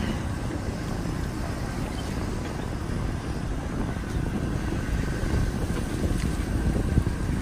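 Wheelchair rolling over brick pavers: a steady low rumble mixed with wind on the microphone, and a faint steady whine in the second half.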